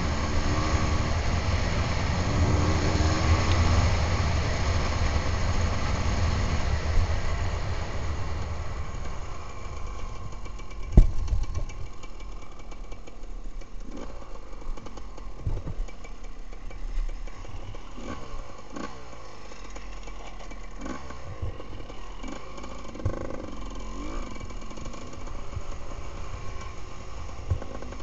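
Enduro dirt bike's engine, heard from the rider's helmet, pulling steadily along a grass track, then dropping to a quieter low-revving run. A sharp knock about eleven seconds in and smaller knocks after it come from the bike going over rough gravel.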